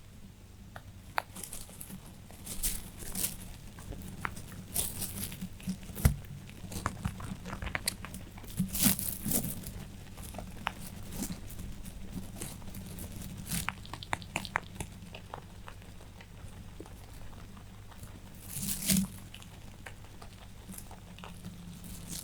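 Rabbits chewing and tearing dry hay: irregular crunching and crinkling with many quick clicks, and louder rustles of hay now and then, over a steady low hum.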